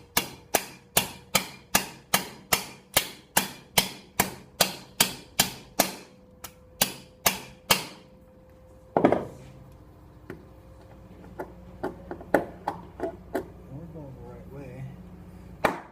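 A hammer tapping rapidly and evenly on a metal tool, about three sharp ringing strikes a second for roughly eight seconds, working loose a stuck Phillips screw in a motorcycle engine's top end. A single heavier knock follows, then a few lighter metal clicks and knocks.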